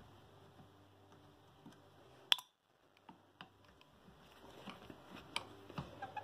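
Light clicks and taps of small carburetor parts and tools being handled, with one sharp click a little over two seconds in and several fainter ones later, over a faint steady hum.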